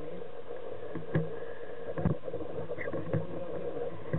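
Motorboat engine idling with a steady low hum, with a few short sharp knocks and clicks about a second apart.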